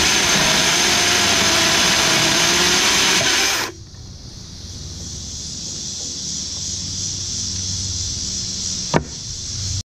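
DeWalt FlexVolt 60V electric chainsaw, mounted in an Alaskan mill, cutting lengthwise through a small log. Its running cuts off suddenly a little under four seconds in as the cut is finished. A quieter steady hiss follows, with one sharp knock near the end.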